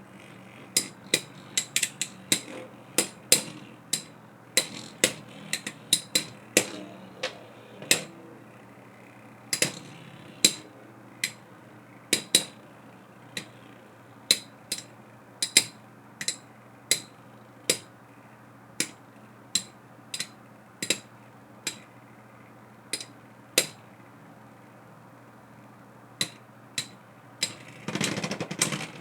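Beyblade X spinning tops, Silver Wolf and Wizard Rod, clashing in a plastic stadium: sharp clacks of hard tops striking each other, one or two a second at uneven intervals, over a faint steady spinning hum. Near the end comes a louder, rougher rasp lasting about a second.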